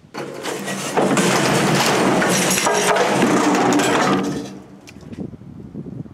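A 1,750 lb Anyang power hammer toppling over off its wooden pallet onto its side: a sudden loud crash of metal and cracking wood that runs for about four seconds, then dies down to scattered knocks. The fall damages equipment.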